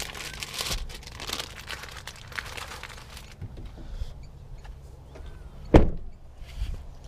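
Rustling and handling of items inside a car's cabin, then a car door slammed shut with one loud thunk just before the end.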